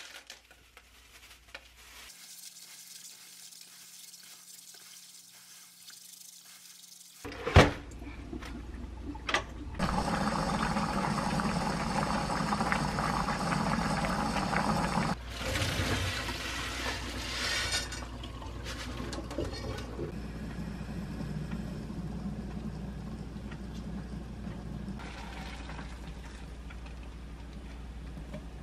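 Water noise as red adzuki beans are washed and boiled. A sharp click comes about seven and a half seconds in. From about ten seconds there is a loud steady rush for about five seconds while the beans boil hard in a saucepan, then a quieter steady water noise.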